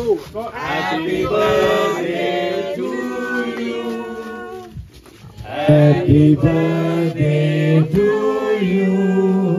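A group of people singing a birthday song together in held, stepped notes, in two phrases with a short break between them.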